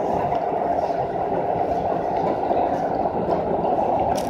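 Ryomo Line local electric train running along the track, heard from inside the front car behind the driver's cab: a steady rumble of wheels on rail and running noise, with a couple of light clicks near the end.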